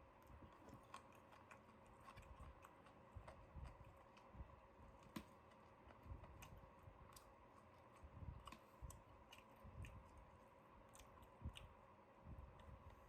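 Faint eating sounds: scattered small crunches and clicks at irregular intervals, over a low steady hum.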